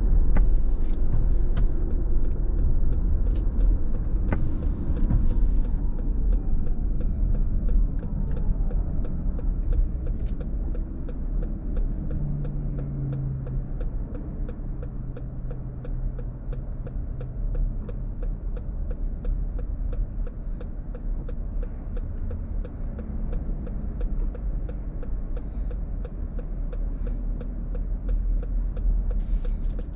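Car cabin noise: low road rumble that eases off over the first dozen seconds as the car slows to a stop at a red light, then a steady low idle. A light, even ticking about twice a second runs through most of it.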